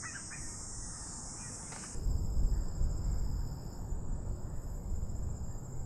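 Steady high-pitched chorus of insects in summer grass. About two seconds in it changes to a narrower, pulsing high trill with a low rumble underneath.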